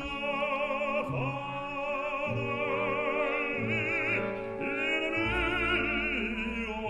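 Operatic music: a singer holding long notes with wide vibrato over instrumental accompaniment, with a deep bass note coming in near the end.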